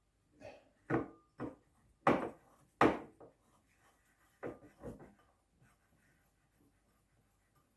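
A run of about seven sharp knocks and clatters from a dishwasher's racks and crockery being handled, the loudest two in the middle.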